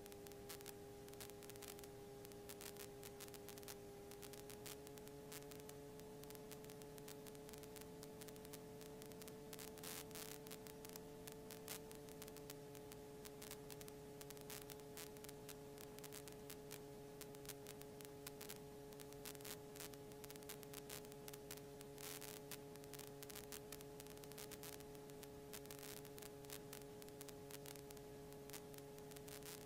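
Faint steady electrical hum with crackling static in the aircraft's intercom audio feed. The hum shifts slightly in pitch a few seconds in.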